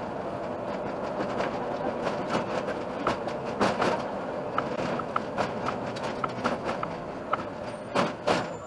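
Iveco Urbanway city bus driving, heard from inside at three times normal speed: a steady rolling and motor noise with a run of sharp clicks and knocks, the loudest two near the end.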